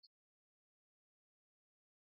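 Near silence, with a single faint tick right at the start.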